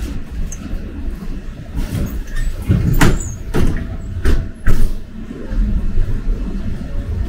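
Inside a city bus on the move: a steady low engine and road rumble, with several sharp knocks and rattles of the bus body about halfway through.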